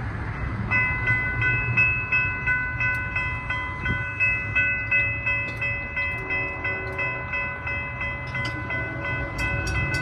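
Railroad crossing bell ringing rapidly and steadily as a Brightline passenger train approaches the crossing. A train horn sounds briefly past the middle, and a quick run of regular clicks starts near the end.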